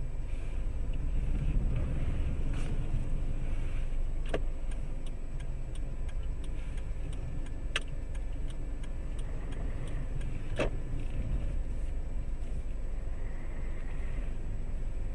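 Low steady rumble of a car's engine and road noise heard inside the cabin. A run of faint, evenly spaced ticks comes through the middle, with a few sharper clicks among them.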